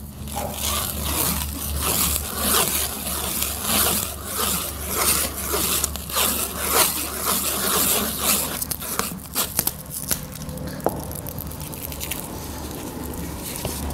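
Plastic stretch wrap being pulled off its roll and wound around a horse's hoof cast, a string of scratchy, crinkling pulls roughly one a second that die down over the last few seconds.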